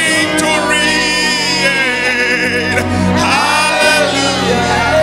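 Gospel praise-and-worship singing with instrumental accompaniment: voices with vibrato over sustained chords.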